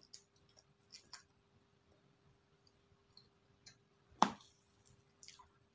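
Close-up eating sounds from spoonfuls of ice cream: small wet mouth clicks and smacks. One much louder knock about four seconds in, as the metal spoon goes back into the plastic ice cream tub.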